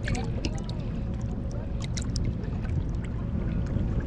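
Water sloshing and splashing in short bursts as a snook is swished back and forth in the river to revive it for release, over a steady low rumble.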